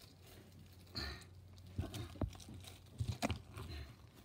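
Plastic shrink-wrap on a CD case crackling and tearing as it is picked at, in a few short spells with light taps.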